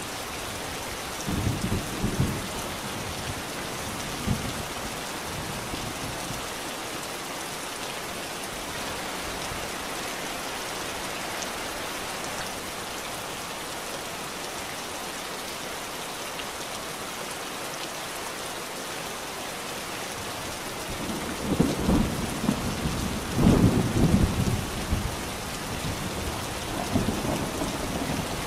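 Steady rainfall with rolls of thunder. A short rumble comes a second or two in, and a longer, louder one comes near the end.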